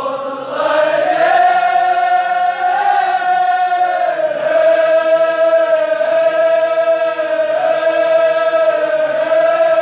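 Male voices chanting a Kashmiri marsiya, a Shia elegy, in one long line held on a steady pitch, with a brief dip about four seconds in.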